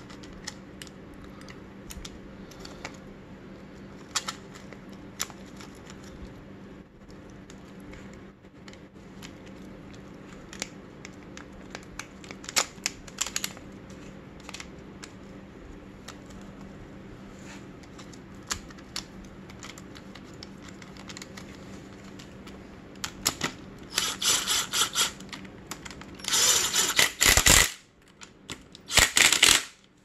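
Bolts of a dirt bike's plastic front sprocket cover being done up with a socket ratchet: scattered light clicks and taps as the cover and bolts are handled, then three bursts of quick ratchet clicking near the end as the bolts are run down, over a steady low hum.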